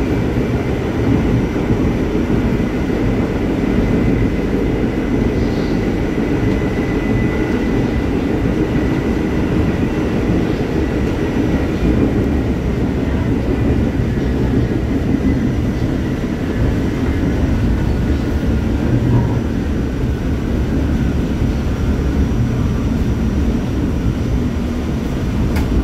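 R44 subway car running between stations, heard from inside the car: a steady rumble of wheels on rail with a faint high whine above it.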